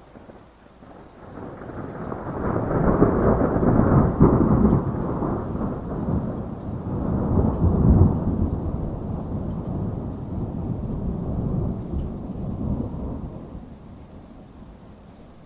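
A long rolling peal of thunder over steady rain. It swells from about a second in, peaks twice, and slowly dies away near the end, leaving the rain hiss.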